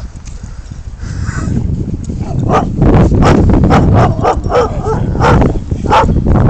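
Large dog barking in play, short sharp barks about three a second, starting about two seconds in, over a loud low rumbling noise.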